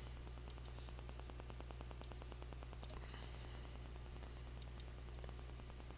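A handful of faint computer-mouse clicks spread over several seconds, over a steady low electrical hum.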